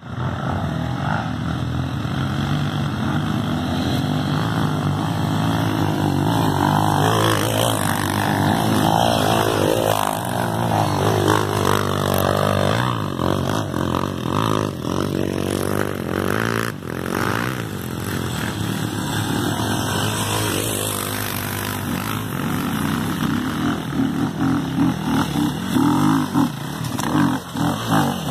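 Off-road motorcycle engine revving hard under load, its pitch rising and falling repeatedly as the throttle is worked. There are a few sharp knocks about sixteen seconds in.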